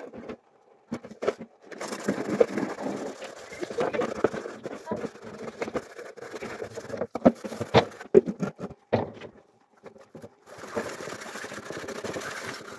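Indistinct voices, with several sharp clicks and knocks in the second half.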